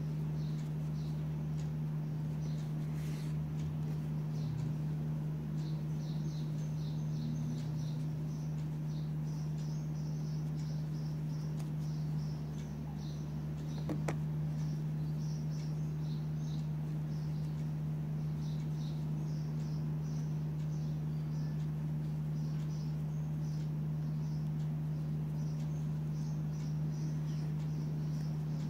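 A steady low hum, with faint high-pitched chirping in short repeated clusters that comes and goes.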